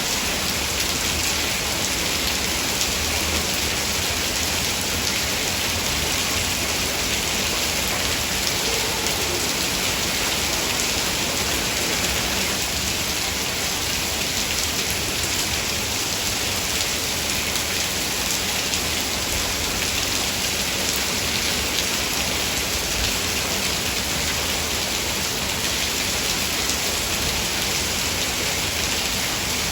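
Heavy rain falling steadily: a dense, even hiss with no thunder and no let-up.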